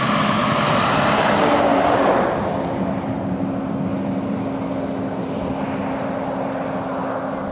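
A car passing by on a nearby road, its tyre and engine noise swelling for about two seconds and then fading, leaving a steady low engine hum.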